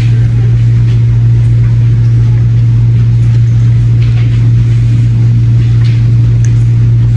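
Loud, steady low machine hum that does not change, with a few faint light ticks over it.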